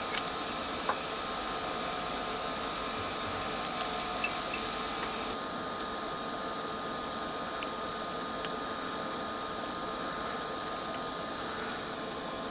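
Steady background hiss, with a few faint light clicks and ticks of small parts being handled on the workbench.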